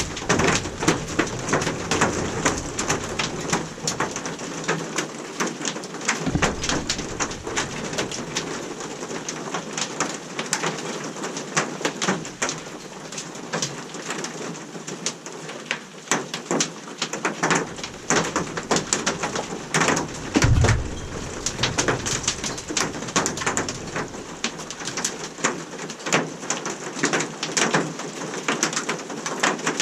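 Hail pelting a greenhouse: a dense, irregular rattle of small hard impacts over a hiss of falling ice and rain, with two brief low thumps about six and twenty seconds in.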